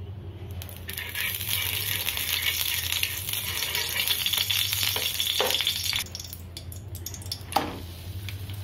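Ghee sizzling on a hot tawa as it is spread around with a spoon; the sizzle stops about six seconds in. A single sharp knock comes near the end.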